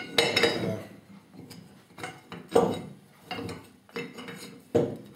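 Metal castings of a 1/8 scale Bettendorf railway truck clinking and knocking against each other and on a wooden workbench as the side frames and bolster are handled and fitted together. The knocks come singly and unevenly, about half a dozen, the loudest about halfway through.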